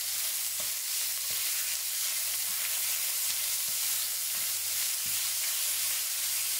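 Sliced pork, onion, ginger and chili sizzling steadily in hot oil in a stainless steel wok, stirred continuously with a wooden spatula that scrapes and knocks lightly against the pan now and then.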